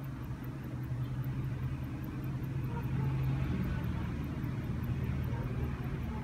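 Steady low rumble, swelling a little around the middle, with the faint fast ticking of a Molnija mechanical pocket watch, about five ticks a second.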